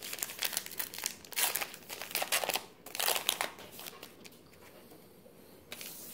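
Trading-card pack wrapper crinkling as it is handled and opened, in a run of crackly bursts over the first three seconds or so, a quieter stretch, then more rustling near the end.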